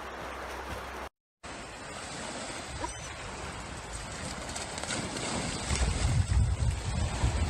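Small waves breaking on a sandy beach, with wind buffeting the microphone as a low rumble that gets louder in the second half. In the first second, before a brief gap, there is the gentler run of a shallow river.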